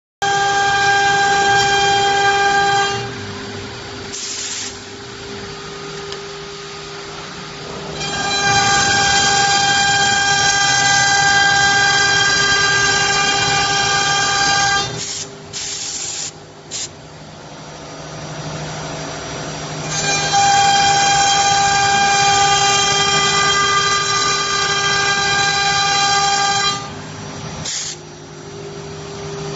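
CNC wood router spindle running with a steady whine, and a louder, higher-pitched scream in three long spells as the spinning bit cuts grooves into the wood panel.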